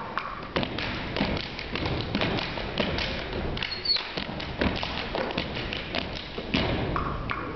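Body percussion by a group of performers: stomps on a wooden stage floor and hand claps, many sharp hits in a quick rhythm.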